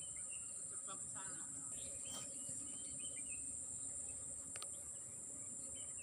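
Steady high-pitched drone of insects, with a few short faint chirps in the background.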